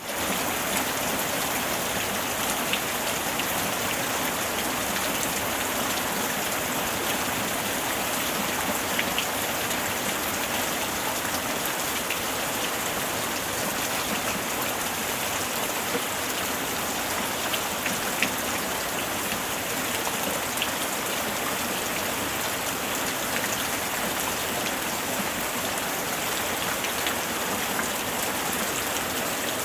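Steady rainfall, an even hiss of rain with scattered individual drop ticks.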